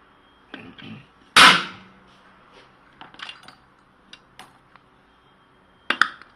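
Sharp knocks and clicks of metal being handled: a weaker pair of knocks just after half a second in, a loud knock about 1.4 s in with a short ringing tail, a few small ticks, then another sharp knock near the end.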